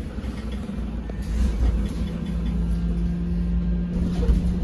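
Sinara-6254 trolleybus on the move, heard from inside: a low road rumble, joined about two seconds in by a steady hum that holds.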